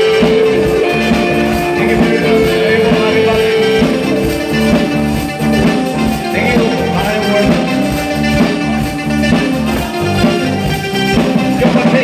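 Live new wave rock band playing: electric guitars, bass, keyboards and drums with sustained chords and a steady rhythm. Near the end a pulsing drum beat comes to the front.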